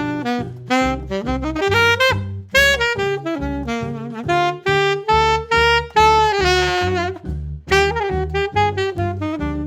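Martin Committee III alto saxophone playing a jazz melody line in quick, connected notes. About two-thirds of the way in, one longer note is held with vibrato.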